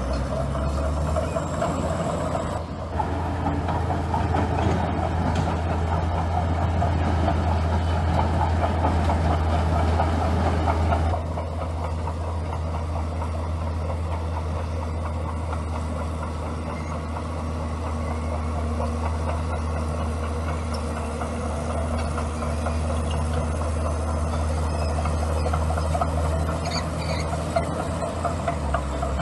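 Komatsu bulldozer's diesel engine running steadily. It works harder and louder from about three seconds in, then eases back about eleven seconds in.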